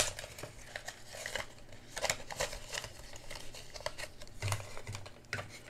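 Paper banknotes and a frosted plastic binder envelope being handled, giving scattered crisp rustles and small clicks, with a few soft thumps near the end.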